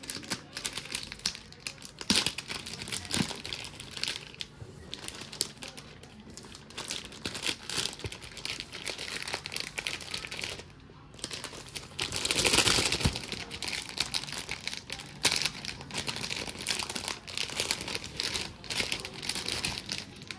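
Clear plastic packaging bag crinkling and crackling as a tablet case is handled and slid out of it, with a louder, denser stretch of crackling about twelve seconds in.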